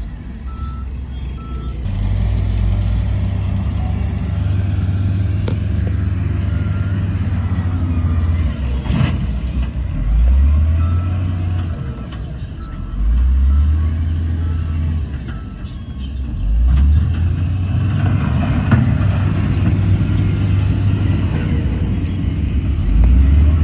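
Heavy diesel construction machinery running, its engine revving up in repeated surges every few seconds as it works. A reversing alarm beeps a few times and stops just after the start.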